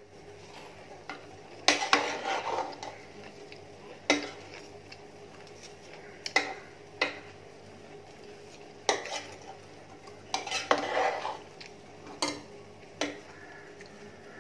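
A slotted spoon stirring and folding cooked rice in an aluminium pressure cooker, knocking against the pot every second or two, with short scrapes through the rice in between.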